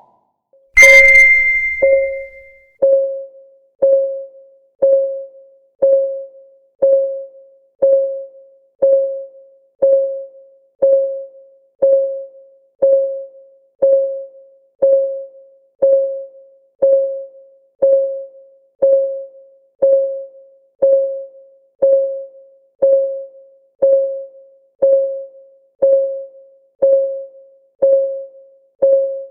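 Countdown timer's clock-tick sound effect: a short pitched tick exactly once a second, each dying away quickly. About a second in, a bright ringing chime sounds over the first stroke, marking the countdown's start.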